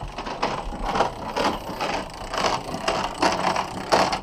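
Hand-cranked deck winch ratcheting, its clicking coming in repeated strokes about twice a second.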